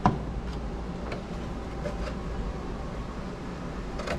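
Steady low hum of a spray booth's extraction fan running. A sharp knock comes just after the start as the spray can is picked up, followed by a few faint ticks.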